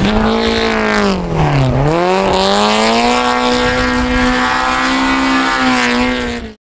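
Rally car engine revving hard. Its pitch drops briefly about a second and a half in, then climbs back and holds high and steady before cutting off suddenly near the end.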